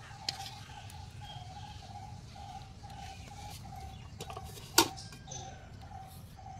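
A metal pot lid is set down on a kadhai with one sharp clank about five seconds in, after a small clink of a ladle near the start. Behind it a faint animal call repeats several times a second.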